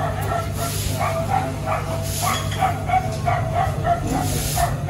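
A dog yapping over and over, about three short high barks a second, over a steady low hum.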